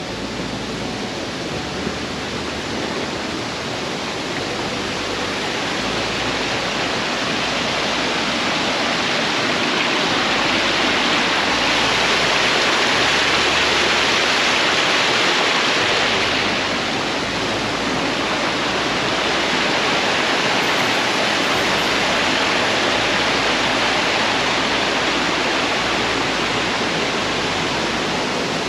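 Running water of a garden stream: a steady rushing, splashing noise that grows louder midway through and then eases a little.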